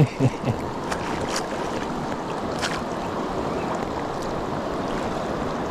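Steady rush of a fast-flowing river, an even wash of water noise with a couple of faint brief ticks.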